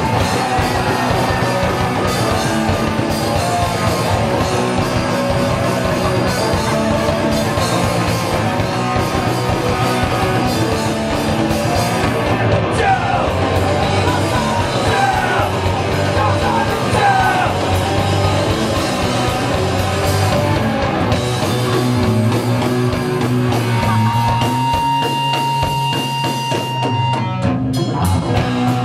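Live punk rock band playing loud, with a drum kit and distorted guitars. A voice yells over the band in the middle, and a steady high tone holds for about three seconds near the end.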